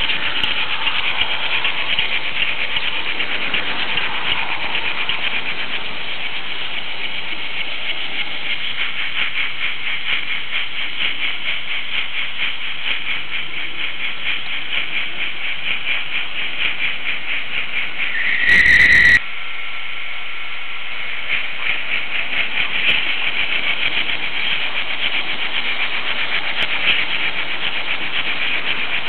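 An H0 model railway car rolling along Märklin track, heard close up: a steady high rattling hiss of small wheels on the rails, made of very rapid fine clicks. About two-thirds of the way through comes a brief loud squeal lasting under a second.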